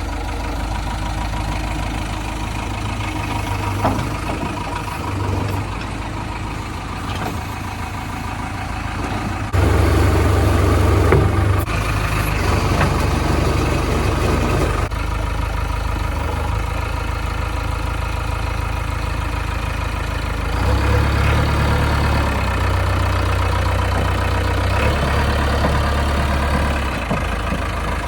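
JCB 3DX backhoe loader's diesel engine running steadily as the machine works. It gets louder for a couple of seconds about ten seconds in, and again for several seconds from about twenty-one seconds in.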